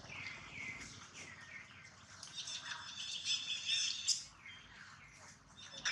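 Birds chirping: a run of short falling chirps, then a denser, high twittering about two to four seconds in.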